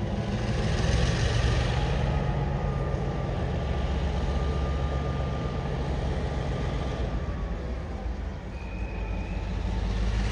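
Train running through the station with a steady, loud low rumble; it eases slightly about eight seconds in and then builds again.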